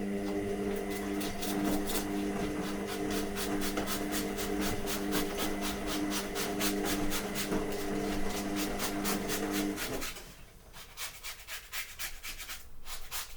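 Kitchen roll soaked in acetone rubbed quickly back and forth over a spring steel print sheet, scrubbing off the softened PEI adhesive in a steady rhythm of strokes. A steady low hum runs underneath and stops about ten seconds in.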